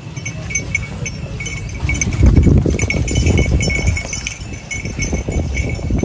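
Dairy cattle lowing in a pen, with a deep moo swelling about two seconds in.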